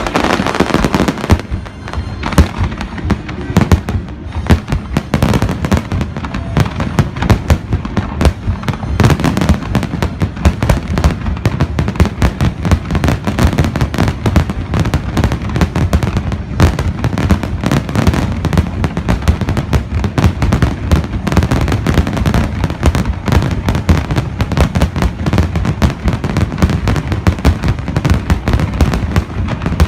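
Fireworks display: a dense, continuous barrage of booms and crackling bursts, many per second.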